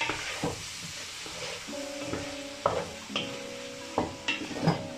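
Wooden spoon stirring sizzling chicken pieces with diced onion and tomato in a metal caldero. It scrapes and knocks against the pot about six times over a steady frying hiss.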